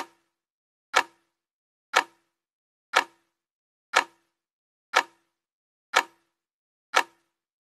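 Clock-ticking sound effect: eight sharp ticks, exactly one a second, with dead silence between them.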